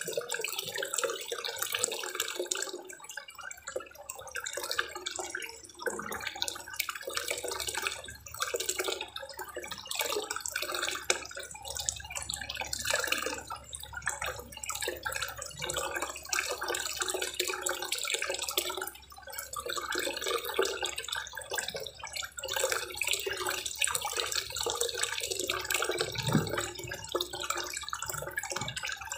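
Garden koi pond waterfall: water pouring from a spout in the brick wall into the pond, splashing steadily.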